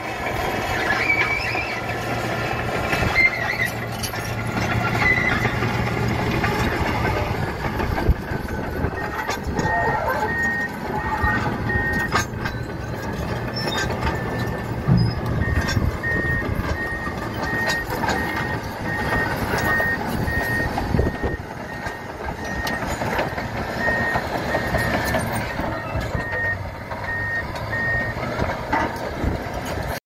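Komatsu D85 crawler bulldozer working: its diesel engine runs steadily under load, with the tracks squealing over the first several seconds. From about ten seconds in, its reversing alarm beeps about twice a second, with a short break.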